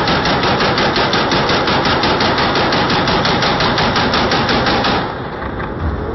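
AK-47 rifle firing a long fully automatic burst into the air, a rapid even stream of shots at about ten a second that stops abruptly about five seconds in.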